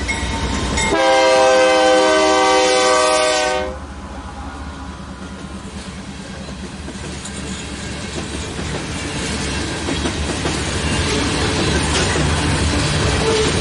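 BNSF diesel freight locomotive's multi-chime horn sounding one long blast about a second in, lasting just under three seconds. After it, covered hopper cars roll past, wheels rumbling and clicking over the rail joints, growing louder toward the end.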